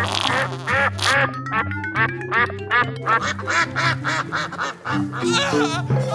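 Upbeat, playful background music with a steady repeating bass and quick, squeaky chirping notes, a long rising slide in the middle and a short run of stepped notes near the end.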